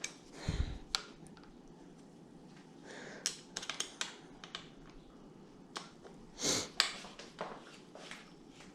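Scattered light clicks and taps, with a couple of soft knocks, from bicycle handlebar and cockpit parts and small tools being handled.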